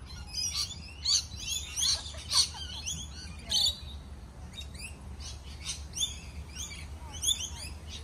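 Birds chirping, many short high calls in quick series throughout, over a faint low steady rumble.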